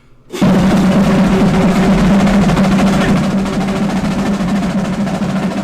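Drum roll played as a sound effect. It comes in suddenly about half a second in and keeps rolling steadily and loudly.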